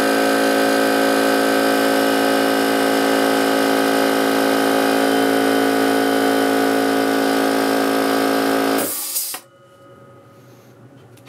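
DEWALT air compressor (Italian-made) with its repaired pump running steadily, then shutting off about nine seconds in with a brief hiss of air. The tank has come up to about 120 psi, so the freed-up pump is building pressure again.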